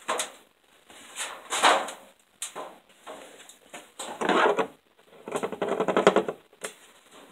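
Hand tools working a bolt on the front of a Dodge 318/360 V8: a ratchet wrench clicking and metal clinking in short bursts, with a longer run of rapid ratchet clicks about five to six seconds in.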